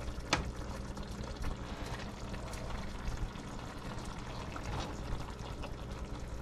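Chicken and vegetables simmering in sauce in a skillet: a soft, steady bubbling, with a couple of light clicks as a spatula scoops from the pan, the sharpest just after the start.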